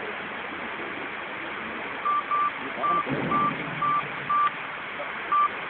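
A run of short electronic beeps, all at one pitch and evenly spaced at about two a second, starting about two seconds in, over a steady hubbub of background noise.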